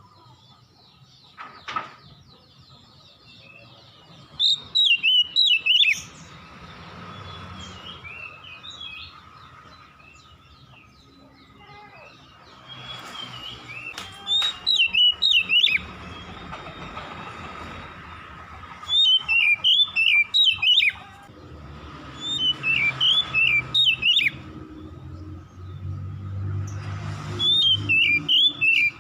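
Oriental magpie-robin (kacer) singing: about five bursts of rapid, sharp high notes, each lasting a second or two, with pauses between them. A faint steady tone runs underneath.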